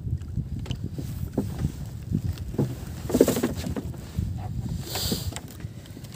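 Uneven low rumble of water and wind around a small outrigger boat drifting at sea. Brief louder noises rise out of it about three seconds in and again about five seconds in.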